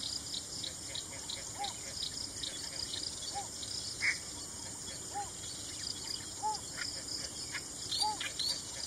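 Yellow bittern calling: a short, low note repeated five times, about every one and a half to two seconds, over a steady background of high chirping.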